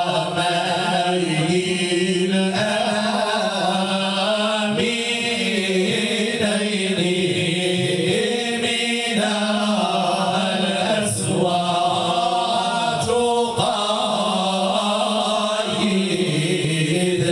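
A group of men chanting Moroccan madih, Islamic praise songs, in unison through microphones. The long held notes shift in pitch.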